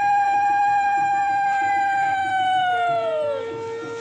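Conch shells (shankha) blown in long, steady notes at the ritual: a higher note held and then dropping off about three and a half seconds in, overlapped near the end by a second, lower conch note.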